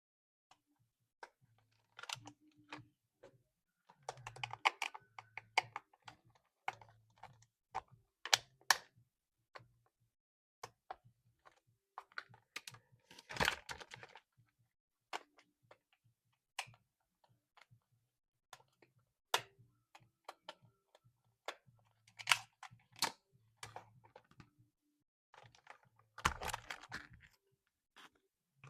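Irregular clicks, taps and crinkly rustles of hands handling a plastic toy RC car and its packaging, with a few louder bursts of crinkling.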